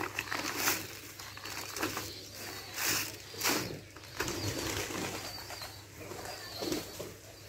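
Rustling of a woven plastic sack being handled and shaken out, with fish dropping and slapping onto the dirt ground in several short bursts. Birds call faintly in the background.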